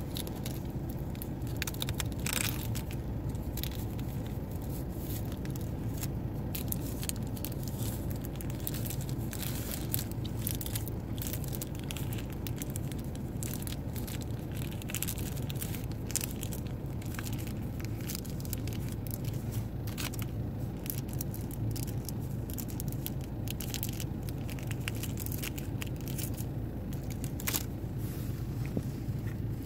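Close-up chewing and crunching of crackers topped with tuna salad, a steady run of small crackles and clicks, over a continuous low hum.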